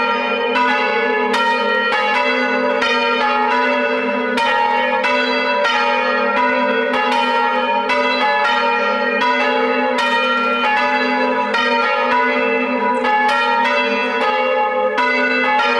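A ring of three church bells being rung in changes, struck one after another in an even, unbroken rhythm so that their overlapping tones hang together.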